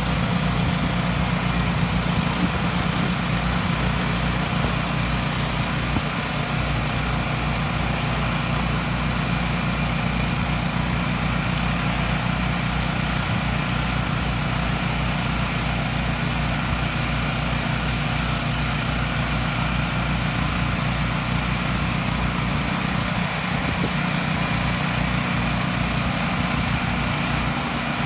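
Pressure washer engine running steadily under load, with a continuous hiss of high-pressure water spraying from surface cleaners onto concrete.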